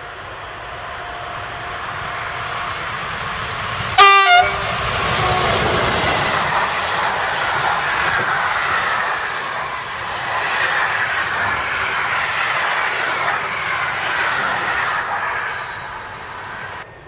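A train passing close by at speed: its horn gives one short, loud blast about four seconds in, then the wheels and cars run past for several seconds before the noise dies away near the end.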